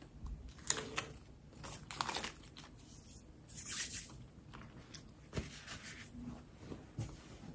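A person chewing a caramel candy, with wet, sticky mouth noises and little clicks coming at irregular moments.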